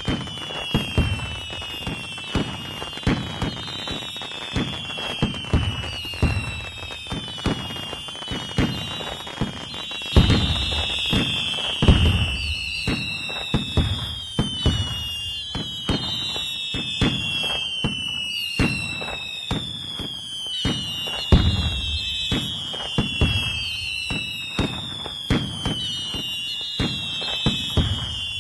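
Fireworks going off in a steady barrage: repeated bangs and booms, with falling whistles about once a second.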